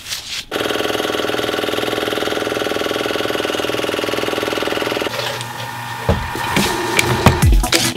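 A 6.5 hp, 80-gallon two-stage air compressor running with a fast, even pulse, which cuts off suddenly about five seconds in. About a second later electronic music with deep, falling bass beats starts, with a power drill working under it.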